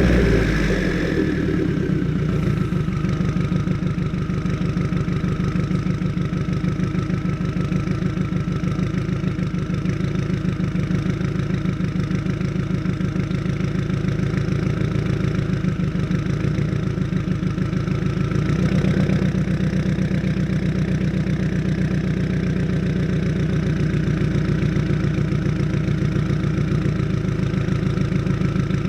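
A 2015 Subaru WRX's turbocharged flat-four with Tomei unequal-length headers, idling just after start-up. The revs settle in the first couple of seconds, then it runs at a steady, pulsing idle, and the idle note shifts slightly about two-thirds of the way through.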